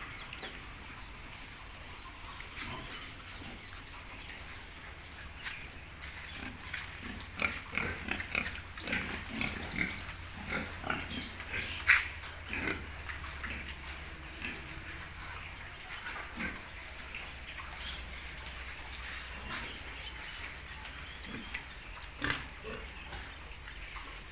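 Pigs making many short calls, thickest in the middle stretch, with one louder call about halfway through.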